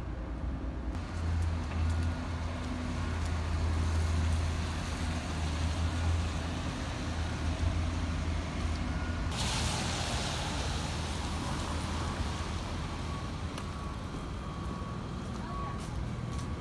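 Street traffic: a heavy vehicle's low engine rumble, then a sudden loud hiss about nine seconds in that carries on, with faint steady tones near the end.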